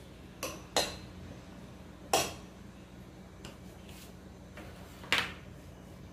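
Metal spoon clinking against a ceramic bowl while baby corn is mixed into batter: a few sharp clinks with a short ring, the loudest about two seconds in and another near the end, over a low steady hum.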